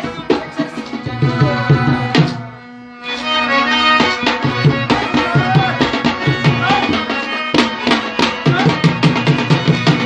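Pashto folk ensemble of harmoniums, rababs and a dholak hand drum playing. The drum strokes break off about two seconds in, leaving the harmonium's held chord for under a second, then the drumming comes back fast and dense over the harmonium and plucked rabab.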